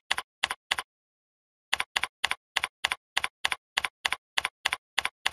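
Keystroke clicks of typing at a computer keyboard: evenly spaced, near-identical clicks at about three a second, with a pause of about a second shortly after the start.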